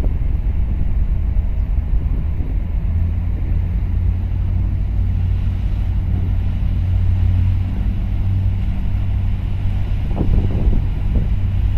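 A steady low engine drone, with wind rumbling on the microphone.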